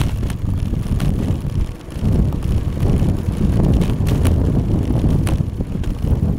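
Wind buffeting the microphone of a camera riding on a bicycle, a steady low rumble that dips briefly about two seconds in, with a few sharp clicks near the end.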